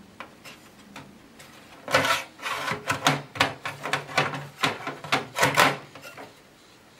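A hard drive in its metal drive mount being pushed and worked against the metal floor of a computer case: a run of clunks and scrapes from about two seconds in until near the end. The bulky rubberized mounting screws keep the drive from sitting flush.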